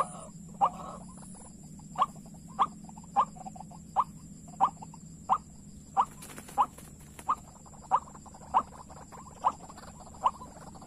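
White-breasted waterhen (ruak-ruak) calls: one short, sharp, slightly rising note repeated over and over at a steady pace, about one every two-thirds of a second.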